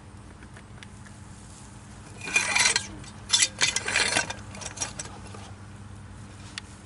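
Metal tools scraping and clattering against the old wheel bearing's outer race on the spindle, in a few short irregular bursts from about two seconds in, with a couple of lighter clinks near the end.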